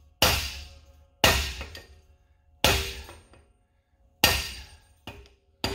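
Big hammer striking a brass punch to drive a differential pinion out of its housing: five sharp metallic blows, a second or a second and a half apart, each ringing and dying away. The pinion is very tight in its bearings.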